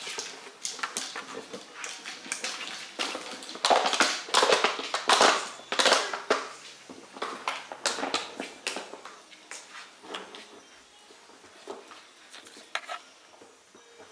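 Golden retriever puppies chewing and knocking about an empty plastic bottle: quick crackling and crunching of thin plastic with clatters, busiest about four to six seconds in, then thinning to scattered clicks.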